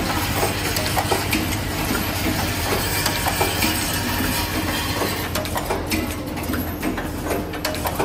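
Automated power-plug assembly line running: a steady machine hum with many irregular clicks and clacks from its stations and conveyor holders.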